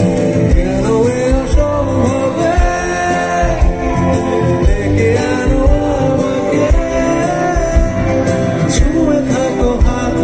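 Live band music with a male singer singing into a microphone over keyboard and a steady drum beat, heard from within the concert crowd.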